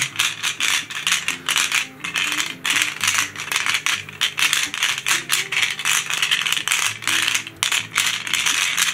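Loose plastic pyramid pieces rattling and clicking inside a Sengso Rock Ball, a clear plastic puzzle sphere, as it is turned and shaken to scramble them. The clatter is dense and continuous, and loud.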